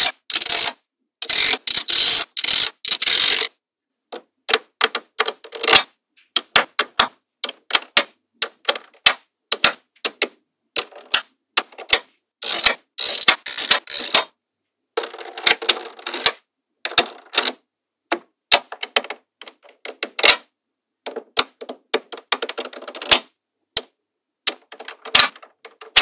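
Small magnetic balls clicking as they snap onto one another, in an irregular run of sharp clicks. Several stretches of rattling come as clusters of balls roll and shift together, the longest at the start.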